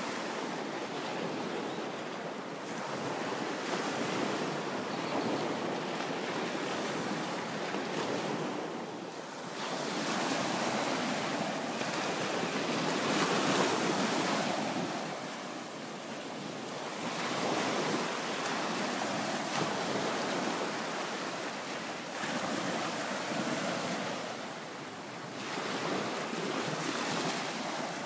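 Small bay waves breaking and washing up a sandy shore, the wash swelling and easing every few seconds, with wind blowing on the microphone.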